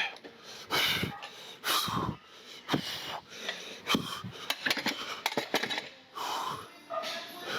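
A man breathing hard after a heavy set of incline bench press, with loud wheezing breaths about once a second: he is out of breath from the exertion.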